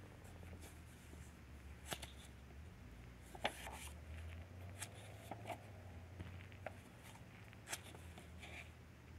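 Faint rustling of sheets of printed craft paper being handled and shuffled in the hands, with a few sharper crisp ticks as the sheets are moved, over a low steady hum.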